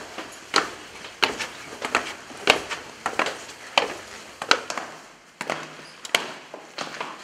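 Footsteps of two people coming down stone stairs, hard soles striking the steps in a steady rhythm of roughly one and a half steps a second, some steps doubled.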